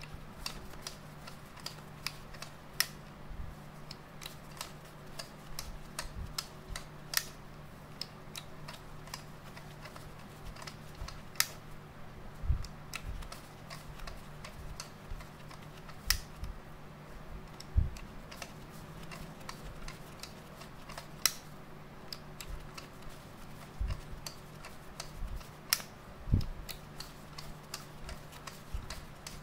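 Yashicaflex C twin-lens reflex camera's knob being turned by hand: irregular small mechanical clicks and ticks, now and then a soft knock, over a faint steady low hum.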